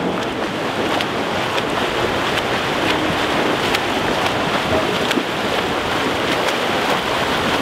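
Several swimmers sprinting freestyle: a steady splashing and churning of water from their arm strokes and kicking.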